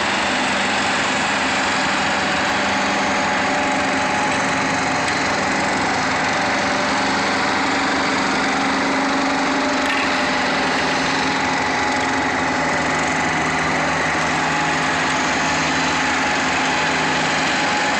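Engine of asphalt paving machinery running steadily at an even level, with a few held tones in its hum.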